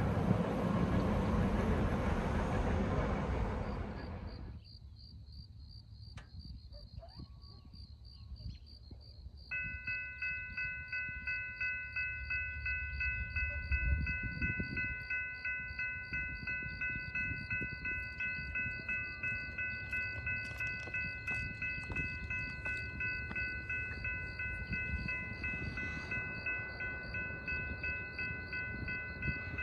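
The rumble of a passing freight train cuts off about four seconds in. A few seconds later a railroad grade-crossing warning bell starts ringing, a steady string of clanging strokes about twice a second, signalling an approaching train.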